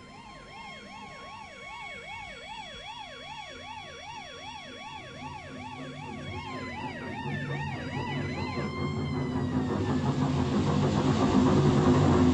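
Emergency vehicle siren sounding a fast rise-and-fall warble, about two and a half cycles a second, over a steady tone. Its pitch drops about seven seconds in as it passes. It then fades under a rising rushing rumble of vehicle noise that is loudest near the end.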